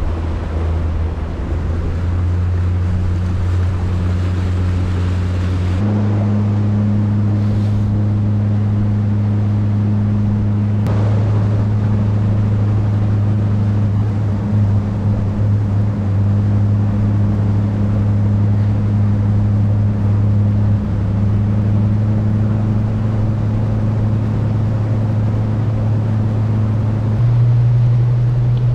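Boat motor running at steady revs, its pitch shifting abruptly up or down a few times, under steady wind and water noise.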